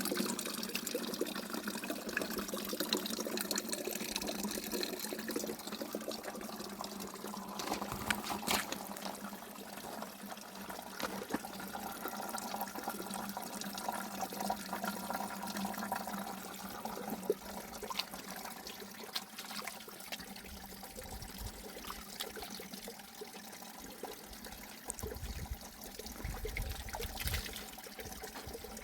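Water trickling and splashing, with scattered small clicks.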